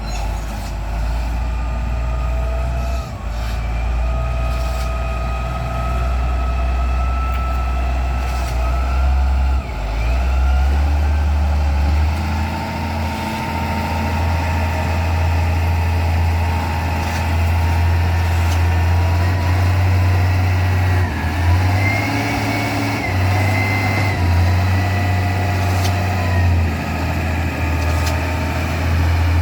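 Heavy diesel vehicle engine running steadily at low revs, with a whine over the rumble that drifts slowly up and down in pitch.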